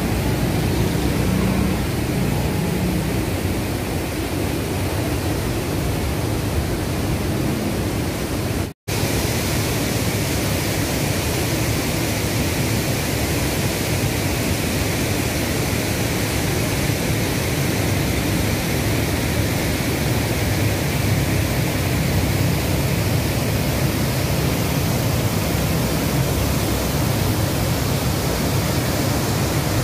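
Loud, steady rush of river water pouring over a weir's spillway and tumbling through rocky rapids. The sound cuts out for an instant about nine seconds in.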